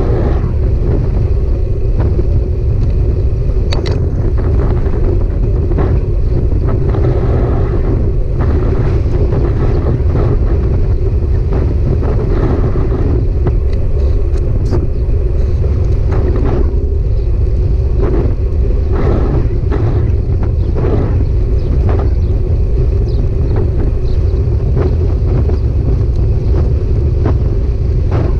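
Steady loud rumble of a bike being ridden: wind on the microphone and road noise, with scattered clicks and rattles.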